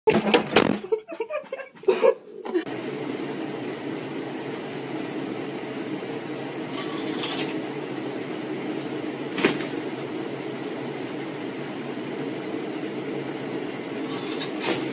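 Steady low hum of room noise, like a ventilation or air-conditioning drone, with one sharp click about halfway through. It is preceded by a couple of seconds of loud, irregular sound.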